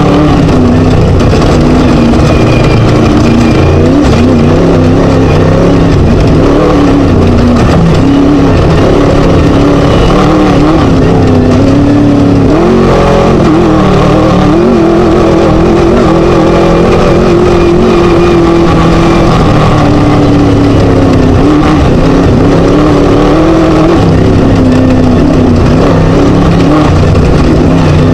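Class 1 desert buggy's Scat V4 engine running hard at high revs, heard on board, loud and constant, its pitch rising and falling with throttle changes over the rough terrain noise.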